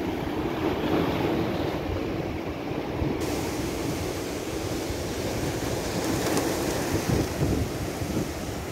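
Red Sea surf washing and breaking over rocks in a strong wind, a steady rush of water with gusts of wind buffeting the microphone.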